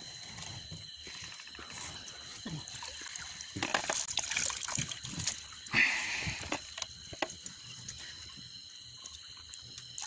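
Water dripping and splashing off a wet cast net as it is hauled out of the river into a wooden boat, with a louder rush of water from about four to five seconds in and a sharp splash just before six seconds.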